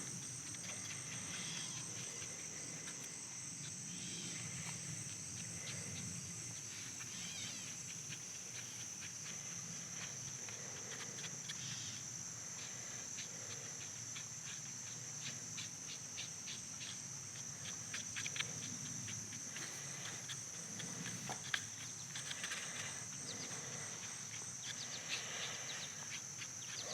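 Faint scraping and ticking of two-part JB Weld epoxy being stirred together on a piece of cardboard, heavier in the second half. A steady high insect drone runs underneath throughout.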